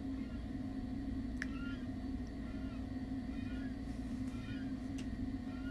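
Domestic cat purring steadily, close to the microphone, with a couple of faint clicks.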